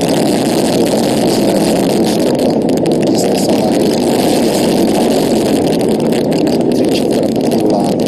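Roar of the GSLV Mk III's two S200 solid rocket boosters in the first minute of ascent: a loud, steady, deep rumble with a continuous crackle.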